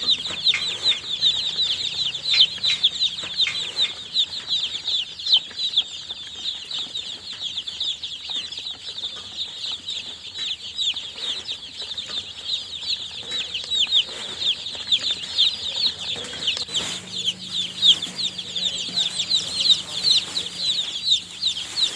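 A group of newly hatched chicks peeping continuously: many high, short, overlapping chirps, each sweeping down in pitch.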